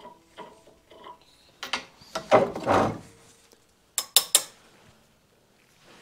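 Metal-on-metal clicks and clanks from a thread tap and its wrench being backed out and a cast-iron bench vise being opened: light ticks at first, a loud scraping rattle about two seconds in, then three sharp metal clanks just after four seconds, with a thump at the very end.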